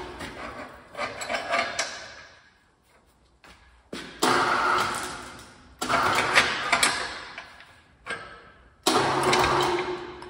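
A motor-driven machine run in four short bursts, each starting sharply and dying away over a second or two.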